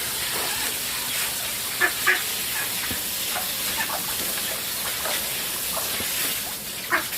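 Farm poultry calling: a few short squawks, two close together about two seconds in and another near the end, over a steady hiss.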